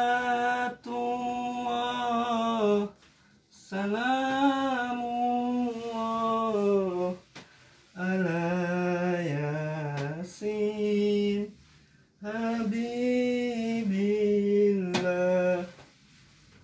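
A solo voice singing slow, drawn-out phrases with long held notes that glide up and down, four phrases with short breaks between them.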